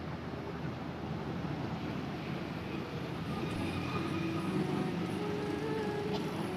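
Bus engine idling steadily, with no horn sounding.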